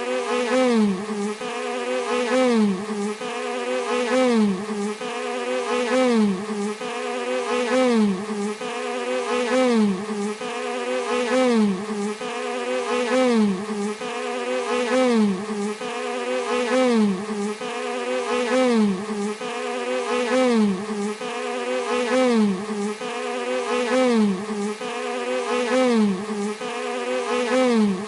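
Bee buzzing steadily, its pitch and loudness swelling and dipping in an even, repeating pattern a little more than once a second.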